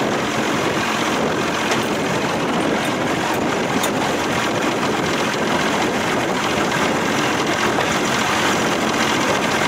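1992 Johnson 60 hp two-stroke outboard running steadily at high speed, with the boat planing and water rushing past the hull, all blended into one loud, even din.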